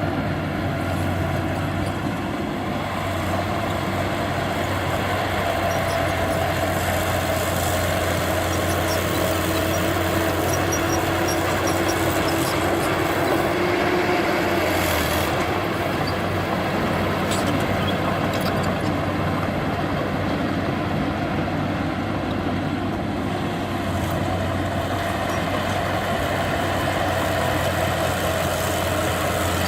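Diesel engine of heavy earthmoving machinery running steadily with a low, even hum.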